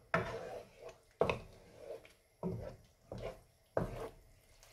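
Wooden spoon stirring a thick tomato and chilli sauce in a non-stick pan: a series of scraping strokes against the pan, about one a second.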